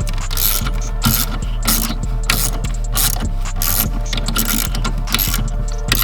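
Ratchet wrench being worked in short repeated strokes, about two a second, over a steady low hum.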